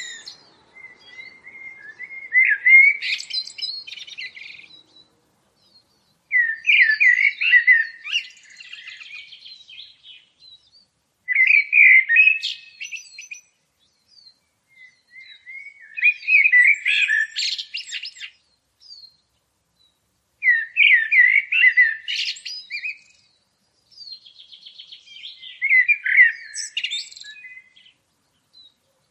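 A songbird singing in separate phrases, about six of them, one every four to five seconds with short pauses between. Each phrase opens with lower warbling notes and ends with a higher, sharper twitter.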